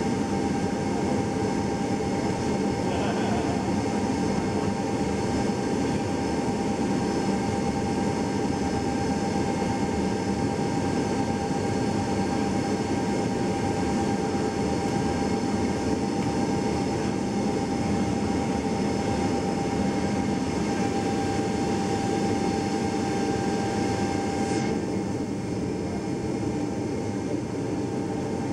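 Ilyushin Il-76's four D-30KP turbofan engines running steadily, heard from inside the cargo hold: a dense rumble with a steady high whine over it. About three quarters of the way through, the sound turns slightly quieter and duller.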